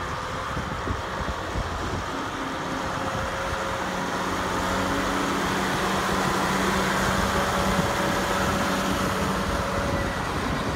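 1984 John Deere 4250 tractor's six-cylinder turbo diesel engine running as the tractor drives by on a dirt road. It grows louder through the first half as it comes close, then holds steady, with a steady hum over the engine noise.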